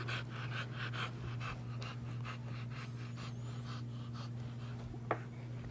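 A dog panting rapidly through its held-open mouth, about four breaths a second, over a steady low hum.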